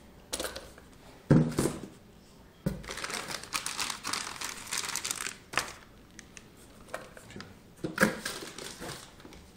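Packaging crinkling and rustling as items are handled and pulled out of a box, in irregular bursts, with a couple of sharp knocks about a second in and near the end.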